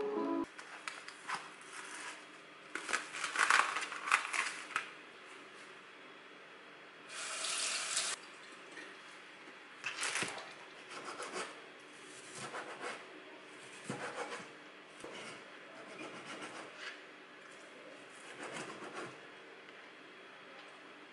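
A cleaver slicing raw chicken breast on a plastic cutting board: scattered knocks of the blade on the board, with rustling between them. About seven seconds in comes a second-long hiss.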